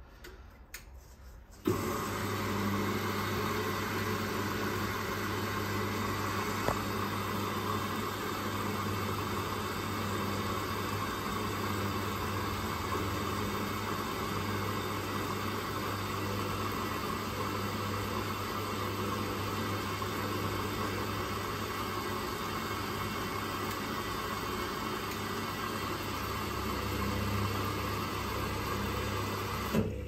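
A Hoover-built Teco 9 kg front-loading washing machine's drum motor starts up about two seconds in and turns the drum steadily, tumbling the wash load in water during the cotton wash.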